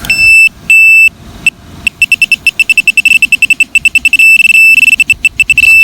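Metal detecting pinpointer beeping at one high pitch: two long beeps, then rapid pulses that speed up into a near-continuous tone as it closes on a buried target in the hole.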